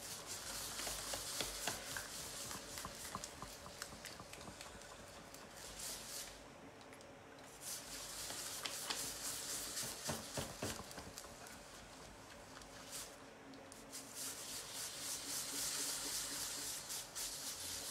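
Wet clay being centered by hand on a spinning pottery wheel: gloved hands rubbing and pressing the clay through slick slurry, a steady wet hiss with small squelching clicks that eases off briefly twice. A faint steady hum of the wheel runs underneath.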